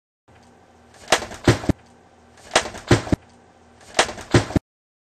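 A hit replayed three times in a row: each replay has two sharp smacks about a third of a second apart over faint room hiss, and each cuts off abruptly.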